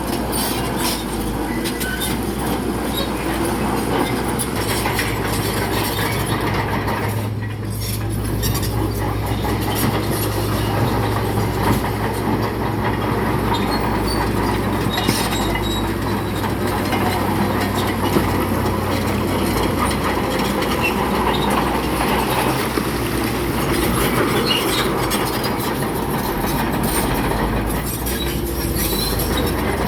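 Bulldozer's diesel engine running steadily under load, with its steel tracks clanking and squealing as it works.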